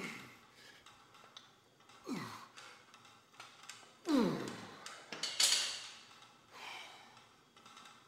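A man's strained grunts of effort on lifting reps: three short vocal grunts that drop sharply in pitch, about two seconds apart, the third the loudest, followed by hard breathy exhales.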